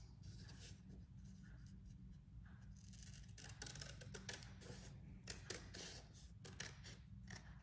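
Scissors cutting through a folded paper circle: faint, irregular snips that come more often in the second half, over a low steady hum.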